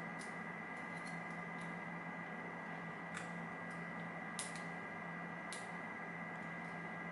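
A handful of small, sharp metal clicks and ticks, spaced irregularly, as a picked challenge lock is handled and put back together. Underneath runs a steady electrical hum with a faint high whine.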